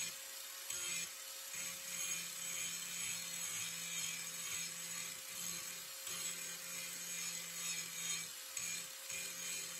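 Angle grinder grinding paint off a steel plate: a steady motor whine under a gritty hiss of the wheel on metal, its level rising and dipping as the wheel is worked across the surface.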